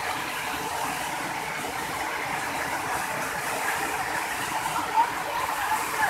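Waterfall rushing steadily as it cascades and splashes down a rock face. A brief short sound stands out about five seconds in.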